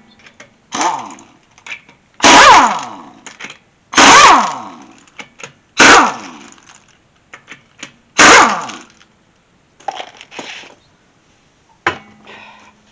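Air impact wrench loosening the lug nuts on a front wheel: a series of short, loud hammering bursts one to two seconds apart, each followed by the tool's falling whine as it spins down, with clicks of nuts and the socket between.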